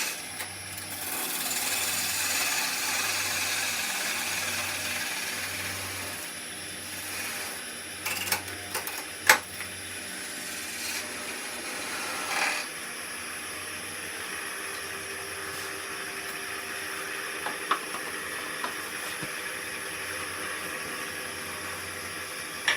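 Oneway 2436 wood lathe running while a parting tool cuts into spinning green wood, a steady scraping hiss that is loudest for the first several seconds and then eases off over the lathe's hum. A few sharp clicks come around the middle.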